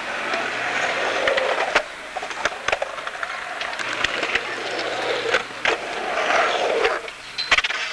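Skateboard wheels rolling on a concrete bowl as a steady rushing noise, with sharp clacks of the board striking the concrete several times, several in quick succession near the end.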